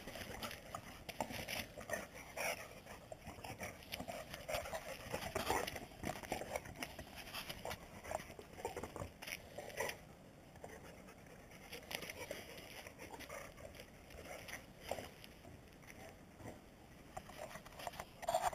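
Two dogs, a Boxer and a Groenendael Belgian Shepherd, panting as they play over a ball, with many short taps and scuffs of their feet on concrete.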